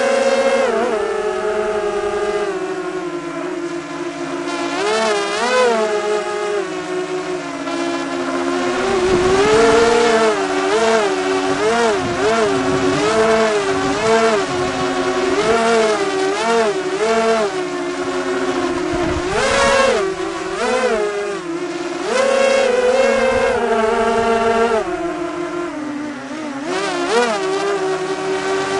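A multirotor drone's motors and propellers whirring. Several tones keep wavering up and down in pitch as the drone climbs and holds position.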